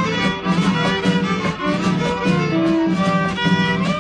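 Instrumental background music led by a violin over a steady, repeating bass line.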